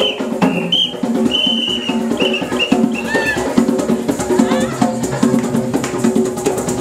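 Drum-led dance music with percussion and a steady, driving beat, with a few high held notes over it in the first three seconds.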